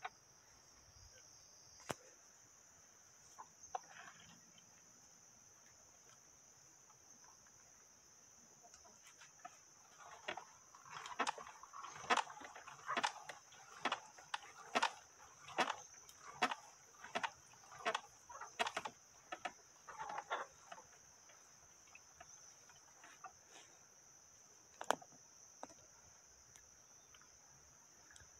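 Hand-cranked cast-iron corn mill grinding soaked corn, each turn of the crank giving a short crunching squeak, about one and a half a second, for some ten seconds in the middle. Insects buzz steadily throughout.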